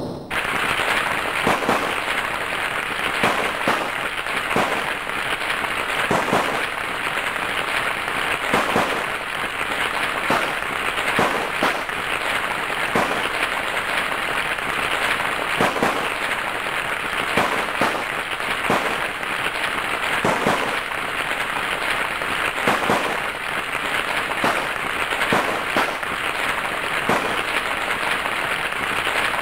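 Battle sound effect: a steady, dense crackle of many sharp pops, as of massed gunfire.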